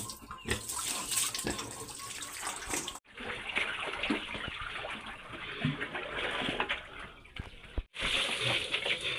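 Water poured from a plastic jerry can splashing over a pig and onto the wet floor of its pen. The sound breaks off sharply twice and is loudest near the end, where a full stream lands on the pig's back.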